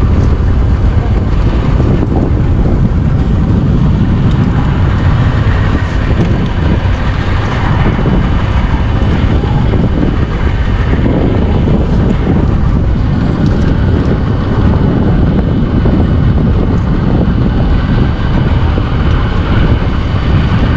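A boat's motor running steadily, with wind buffeting the microphone.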